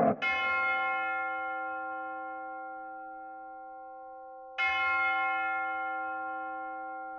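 A bell-like chime struck twice, about four and a half seconds apart, each stroke ringing on and slowly fading away.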